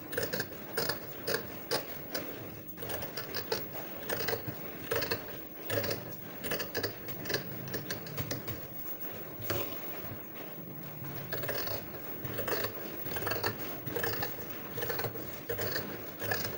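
Scissors cutting through fabric, with repeated snips, about two a second.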